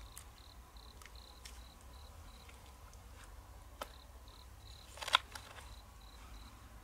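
Faint insect chirping, short high chirps at an even pace of about three a second, with scattered light clicks of opened mussel shells being handled; the sharpest clicks come about five seconds in.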